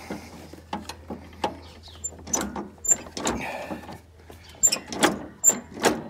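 A series of irregular clunks and clicks, with a few light metallic pings among them, from hands handling the ride-on mower's belt pulleys, springs and brake linkage as the drive belt is seated.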